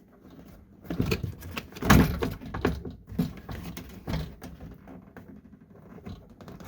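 Plastic inner door panel being worked loose from a car door: irregular knocks, clunks and rattling scrapes of hard plastic against the door, the loudest clunk about two seconds in.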